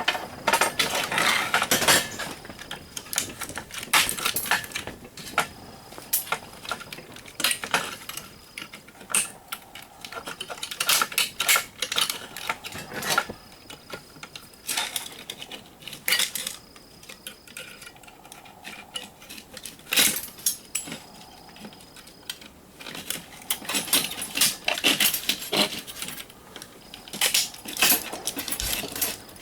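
Small metal parts and hand tools clinking and clattering as a surge protector is taken apart for scrap. The clinks are sharp and irregular, several a second in clusters, with short lulls between.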